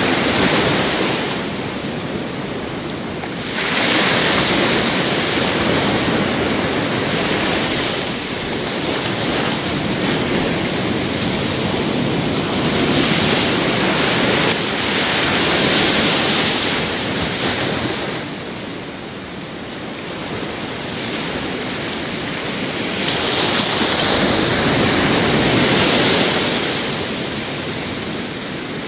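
Ocean surf: small waves breaking and washing up the shore, a continuous rush that swells and fades with each wave every several seconds.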